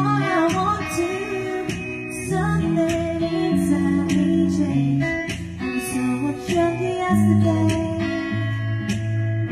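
A woman singing into a microphone over a backing track with guitar.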